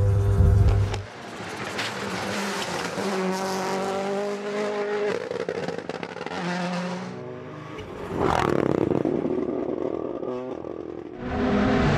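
Rally cars at speed, their engines revving hard with the note stepping up and down through gear changes. Several short clips are cut together, so the sound changes abruptly about a second in, about two-thirds of the way through, and again near the end.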